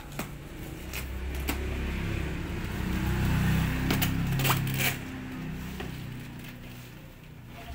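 Cardboard box and paper wrapping crinkling and rustling as hands unpack a boxed plant, with several sharp cracks. A low hum swells through the middle and fades near the end.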